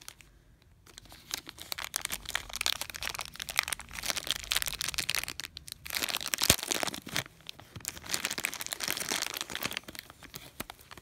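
Thin clear plastic bag crinkling as it is handled and opened, in a long run of crackles with a short lull a little past halfway and one sharp click just after it.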